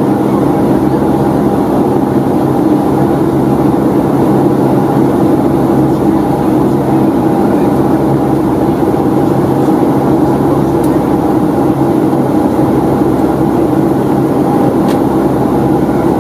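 Steady cabin noise of a Boeing 757-200 in flight: rushing air and the hum of its Rolls-Royce RB211 engines, with a few constant low tones underneath.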